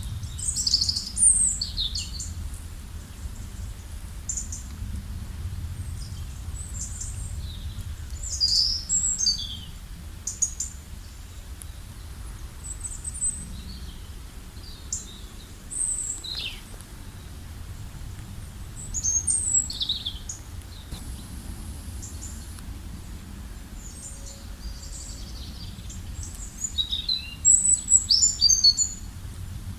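Wild birds chirping and singing in short, high, scattered phrases. The busiest bursts come near the start, about a third of the way in, and toward the end, over a steady low rumble.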